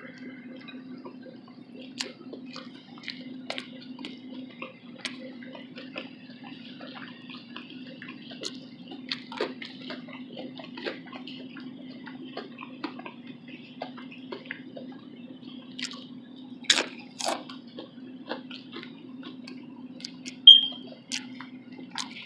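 Close-miked eating sounds from a loaded chilli cheese slaw veggie dog: irregular small wet clicks and smacks of chewing. A steady low hum runs underneath, and a few louder sharp clicks come near the end.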